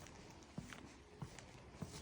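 Faint footsteps: three soft steps, about two-thirds of a second apart, over quiet background noise.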